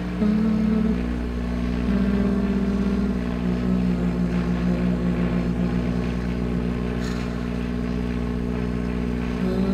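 Slow end-credits music: a low steady drone under a held melody that moves in slow steps from note to note.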